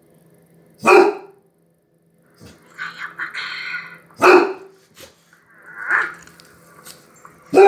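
A dog barking: single loud barks a few seconds apart, with a weaker one in between.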